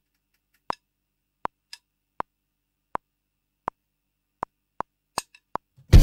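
Metronome click count-in of a play-along track: identical short clicks at an even pace of about one every three-quarters of a second, then four clicks twice as fast before the band comes in at the very end.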